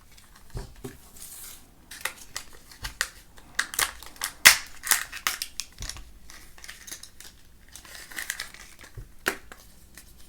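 Kinder Joy egg being unwrapped and opened: its foil wrapper crinkling and tearing, with sharp clicks and snaps from the plastic egg and toy capsule, thickest around the middle.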